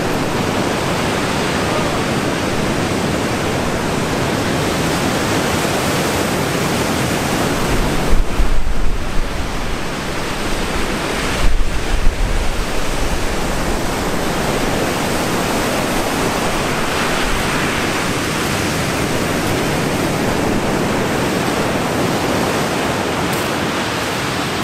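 Lake Superior surf breaking along the shore as a steady wash of waves. Wind buffets the microphone in gusts about eight and eleven seconds in.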